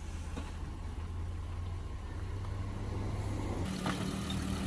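Volkswagen Passat 3.6 V6 engine running with a steady low hum; about three-quarters of the way in it shifts to a higher steady tone.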